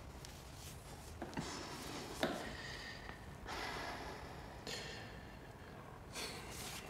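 Several soft breaths and sighs, with sniffs, from two people close together.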